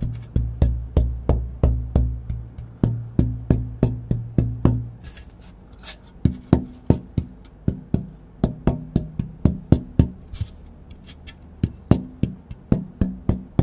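A solid Sitka spruce guitar top, held up by one corner, tapped over and over in a tap-tone test of the tonewood, about three taps a second. Each tap rings with a low tone; after about five seconds and a short pause the taps are lighter and ring a little higher, as the tapping moves to another spot on the board.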